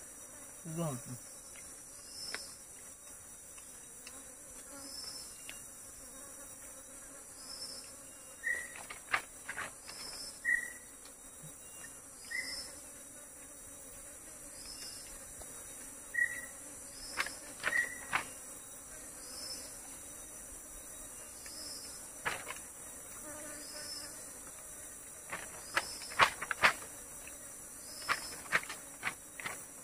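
Steady high-pitched chorus of forest insects, with a short chirp repeating about once a second. A few lower chirps and scattered sharp clicks and knocks come through, the loudest clicks near the end.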